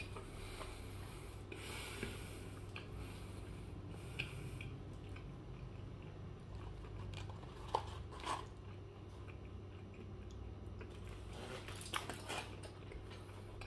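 A person biting into and chewing a burger: soft, faint mouth and chewing sounds with a few small clicks, over a steady low hum.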